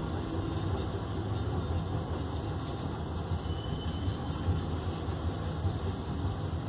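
Heavy diesel engines of a wheel loader and tipper trucks running with a steady low rumble while the loader drives and turns.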